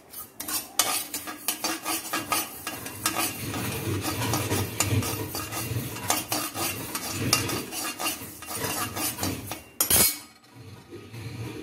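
Metal ladle scraping and stirring white sesame seeds as they dry-roast in a kadai: a quick, steady run of scrapes and clinks against the pan. One sharp, louder knock about ten seconds in, then lighter scraping.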